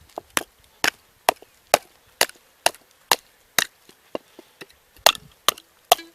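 A kitchen knife being batoned through a chunk of wood: a steady series of sharp strikes on the knife's spine, about two a second, driving the blade down to split the wood.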